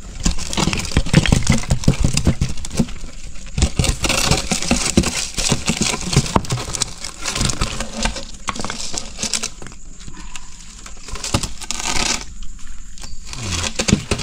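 Wet fish, crabs and shells being tipped out of a mesh catch bag and shifted around by hand on a concrete floor: an irregular run of small slaps, clatters and rustles.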